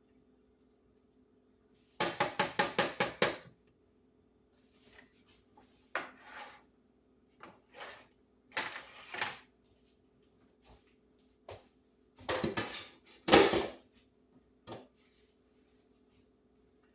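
Kitchen utensils and dishes clattering: a quick run of about seven clinks around two seconds in, then scattered knocks and scrapes, over a faint steady hum.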